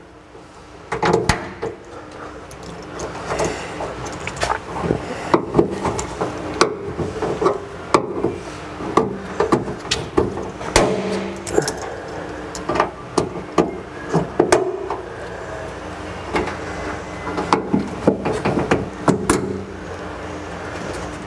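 Irregular clicks, knocks and rattles of a tailgate wiring harness and its plastic clips and connectors being worked loose and handled, over a steady low hum.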